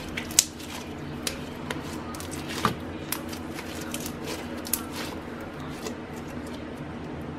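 Hands squeezing and kneading a blue slime packed with small beads: squishing with scattered crackling clicks and pops, the sharpest about two and a half seconds in, over a steady low hum.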